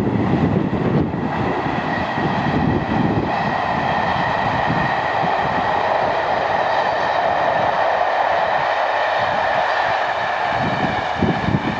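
Class 47 diesel locomotive hauling a train of passenger coaches past, its engine running with a steady whine over the rumble of the train.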